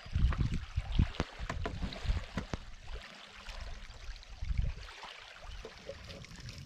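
Small waves lapping on a pebble lake shore, with wind rumbling on the microphone in gusts. Over them come scattered sharp clicks of pebbles crunching underfoot, thickest in the first three seconds.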